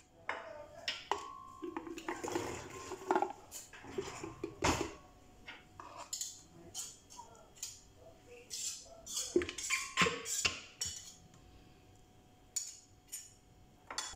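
Chunks of mango, red onion, tomato and curry leaves dropped by hand into a glass blender jar: irregular clinks, knocks and thuds against the glass, with rustling between them.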